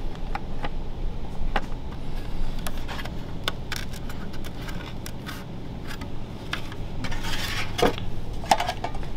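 Scattered light clicks and taps as a steel backing ring is pressed and seated onto a clear plastic blower housing on a metal workbench, with a brief scraping rub about seven seconds in.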